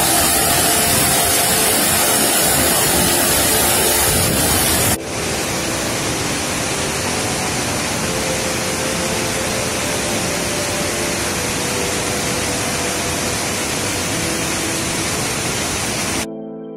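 A waterfall pouring and splashing onto rocks, a loud, even rush with a strong hiss of spray. About five seconds in it cuts to a fast-flowing mountain river rushing over rocks, a steady, slightly quieter rush.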